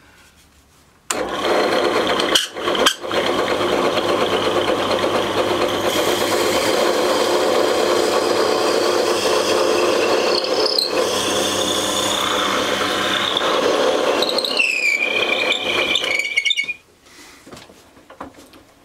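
Old drill press starting up about a second in and boring a 9 mm hole down through a stack of glued wooden discs, the bit squealing at a high pitch as it cuts, most strongly near the end. The drill stops suddenly about two seconds before the end.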